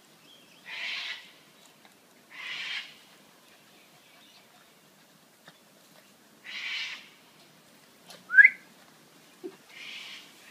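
Small dogs making several short breathy huffs, then one brief high-pitched whine about eight seconds in, the loudest sound.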